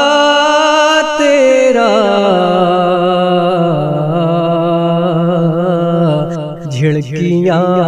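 A solo voice singing a naat unaccompanied, drawing out the word 'tera' in a long, wavering melismatic note that steps down in pitch about two seconds in. The note breaks off briefly near the end before the next line begins.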